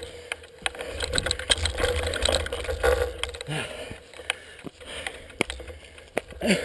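Mountain bike's rear freehub ticking as the wheel turns without pedalling, mixed with sharp knocks and rattles from the bike over rock.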